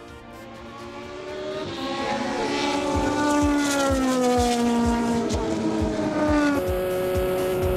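A1GP race car's Ferrari V8 engine at speed: the note fades away at first, then a pass comes in loud, its pitch falling steadily as the car goes by. Near the end the sound changes abruptly to a steadier engine note.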